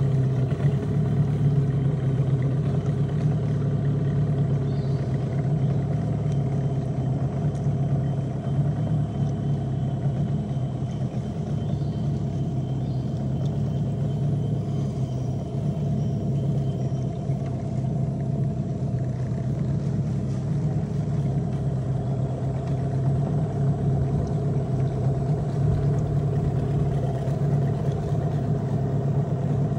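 Small boat's outboard motor running at a steady speed, an even low drone that does not change.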